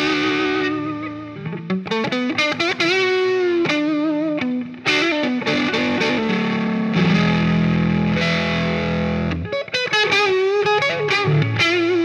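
2017 Gibson Firebird T electric guitar played through an amplifier and 2x12 cabinet: single-note lead lines with bends and vibrato, then a chord held for a couple of seconds about seven seconds in, then more lead notes.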